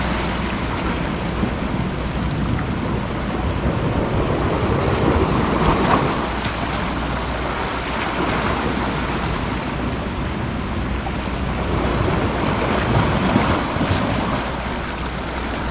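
Sea waves washing and breaking against a rocky shore, a steady rush that surges louder twice, about five and thirteen seconds in, with wind buffeting the microphone.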